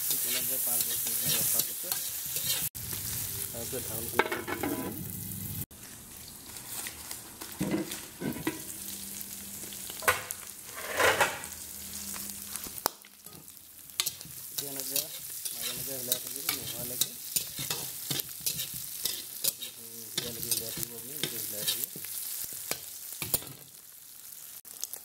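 A spatula stirring and scraping silkworm pupae, onion and green chilli around a hot metal wok, with frequent clicks of the spatula on the metal. Oil sizzles steadily underneath.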